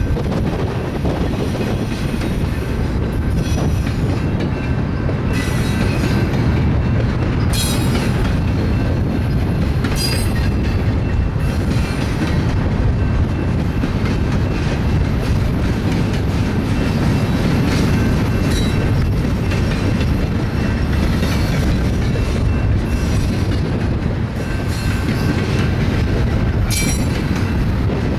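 BNSF double-stack container freight train rolling past: a steady rumble of steel wheels on rail with clicks at the rail joints and brief high wheel squeals now and then.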